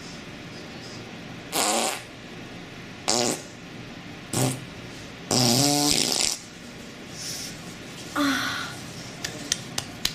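A string of fart sound effects: five separate farts of differing length and pitch, the longest lasting about a second around the middle, followed by a few short clicks near the end.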